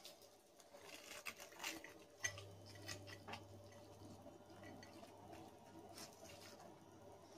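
Faint scattered clicks and light rustles of fried breaded chicken pieces being shifted by hand, one hand in a disposable glove, on a ceramic plate. A low steady hum comes in about two seconds in.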